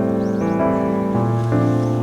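Background music: held keyboard-like chords whose notes change about every half second.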